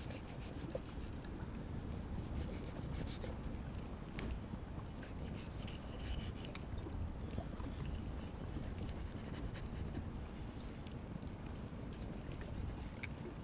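A knife cutting and scraping through raw goose skin and fat in short, scratchy strokes, over a steady low rumble of wind on the microphone.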